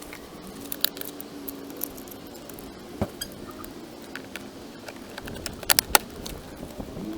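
Scattered light clicks and knocks over a faint steady hum, with a close pair of sharper clicks about six seconds in.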